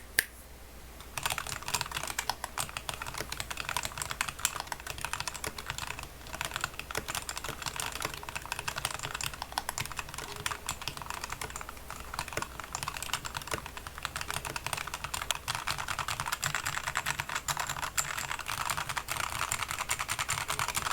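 Fast, continuous typing on a budget K68 mechanical keyboard with red linear switches, its plastic case filled with modelling clay and tape-modded: a dense run of keystroke clacks that starts about a second in, after a couple of single key clicks.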